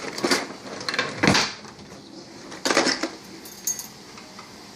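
Kitchen handling noise: a few knocks and clinks of cookware and utensils, with one heavier thump about a second in and another cluster of clatter just under three seconds in.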